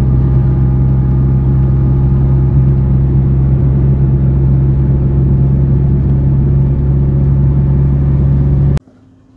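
Cabin noise of a VAZ 2111 at highway speed: a steady, loud drone of engine and road noise with a strong low hum. It stops abruptly near the end.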